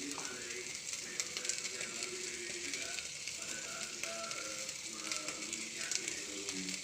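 Fish coated in blended spice paste sizzling on a grill over the fire: a steady hiss with scattered crackles.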